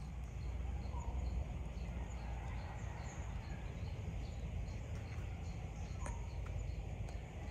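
Dry-forest ambience under a low rumble on the microphone: a high insect chirp repeating about three times a second, and a short falling bird call about a second in and again about six seconds in.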